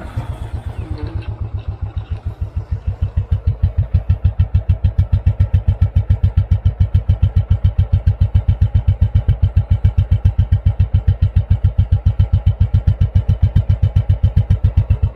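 Royal Enfield Classic 500's 499 cc air-cooled single-cylinder engine idling, a steady, even beat of exhaust pulses that grows louder over the first few seconds and then holds.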